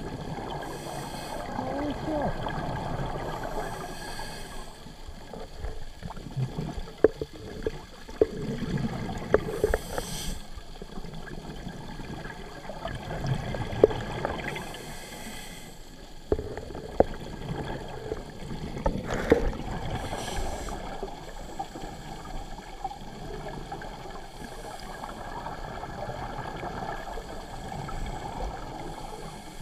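A scuba diver breathing through a regulator, heard underwater: a rush of exhaled bubbles every few seconds over a low rumble, with scattered sharp clicks and knocks around the middle.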